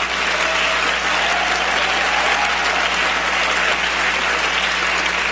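Large audience applauding steadily, with laughter mixed in.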